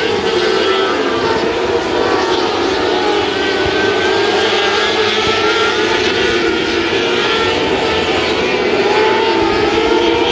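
A pack of 600cc micro sprint cars racing, their high-revving motorcycle engines making a loud, continuous drone whose pitch rises and falls as cars accelerate out of the turns and pass by.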